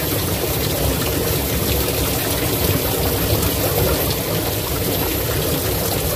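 Stream water flowing steadily over rocks.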